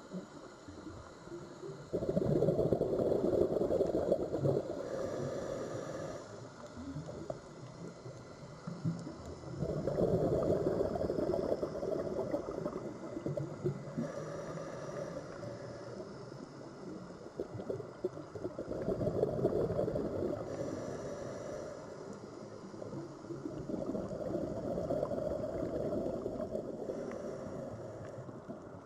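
Sea waves washing in and drawing back, four swells of surf that rise and fade. The first comes in suddenly about two seconds in and is the loudest.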